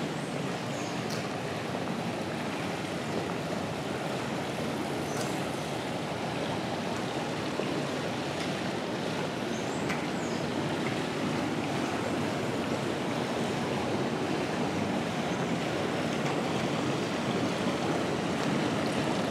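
Steady rushing and splashing of water from a swimming pool's cascade pouring into the pool, growing a little louder near the end.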